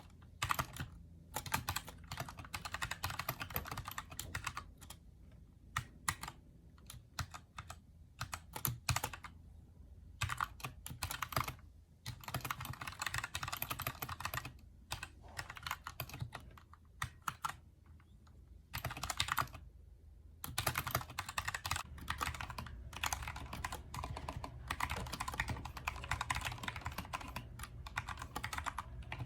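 Typing on a Keychron K2 mechanical keyboard with Gateron Brown switches: runs of rapid key clacks, broken by short pauses.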